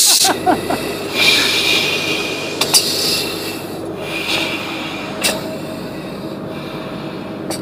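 Crew oxygen mask regulator hissing in a few bursts as the wearer breathes through it, over a steady low hum. Two sharp clicks come about three and five seconds in.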